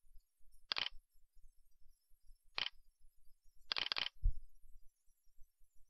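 Computer mouse clicks picked up by the desk microphone: single clicks about a second in and again midway, then a quick double click near the end with a soft low knock just after.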